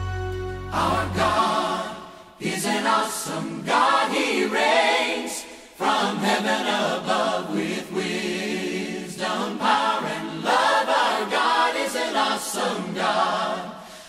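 Background music: a choir singing in phrases with short breaks between them, after a held low chord that ends about a second in.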